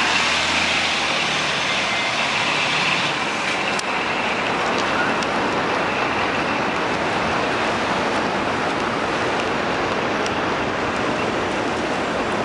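Steady rushing vehicle noise, like road traffic, with a faint tone and low hum dying away in the first three seconds.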